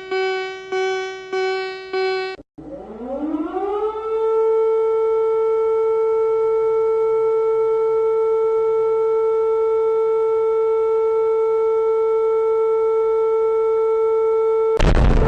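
Electronic alarm tones of a remade Emergency Alert System alarm. A buzzy tone beeps about twice a second, then cuts out. A new tone winds up in pitch like a civil defense siren and holds steady, until a loud crackling noise burst breaks in near the end.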